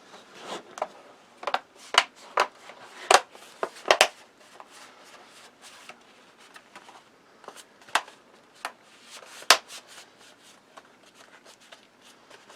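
Plastic bottom cover of a Dell Inspiron 15 3580 laptop being pressed back onto the chassis, its clips snapping into place: a string of irregular sharp clicks and taps.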